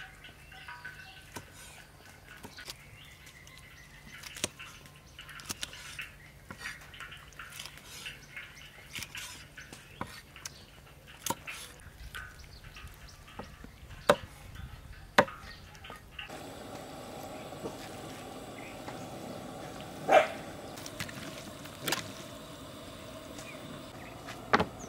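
Cleaver chopping onion on a thick round wooden chopping block: irregular knocks of the blade on the wood, several much louder than the rest.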